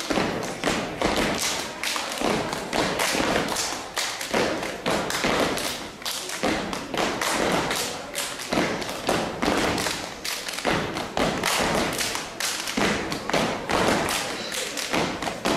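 A step team stepping in unison: rhythmic foot stomps on the stage floor mixed with hand claps, in a fast, steady beat.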